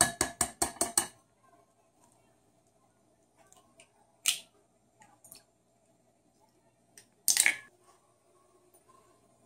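Kitchen utensils and dishes clattering: a quick run of about six sharp taps in the first second, a single click about four seconds in, and a short clink with a faint ring near the end.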